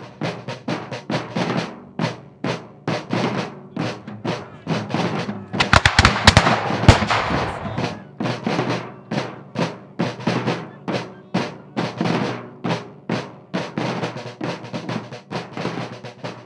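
Drumming in a steady beat of about three strokes a second, with a louder flurry of hits about six seconds in.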